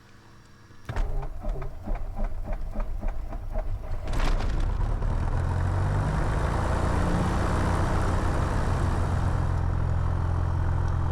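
Piper PA-28-181 Archer II's four-cylinder Lycoming O-360 engine being started: the starter cranks the propeller with uneven chugging for about three seconds, the engine catches about four seconds in, then settles into a steady idle.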